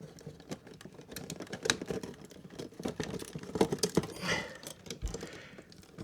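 Irregular small clicks, taps and scrapes of a screwdriver and copper wires being worked into the screw terminals of an electrical wall socket.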